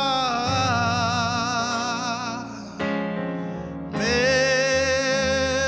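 A man singing a gospel song in iTaukei (Fijian), holding long notes with a wide vibrato, over keyboard accompaniment with a steady low bass line. The voice breaks off briefly near the middle before the next phrase comes in.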